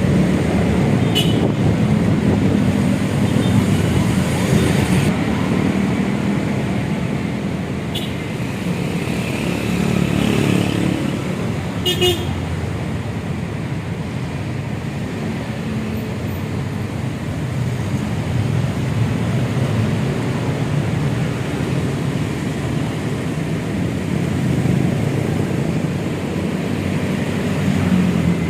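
Road traffic passing, a steady rumble that swells and eases, with a few brief sharp sounds about a second, eight seconds and twelve seconds in.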